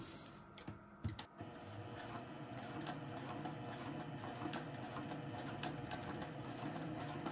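Juki TL-2010Q straight-stitch sewing machine sewing at its slowest speed setting, about 200 stitches per minute: a steady motor hum with light ticking, starting about a second in after a few soft clicks.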